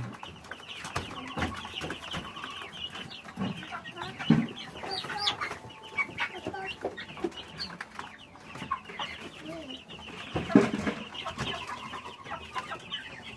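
A flock of chickens clucking and chattering continuously, with two louder thumps, one about four seconds in and one near ten seconds in.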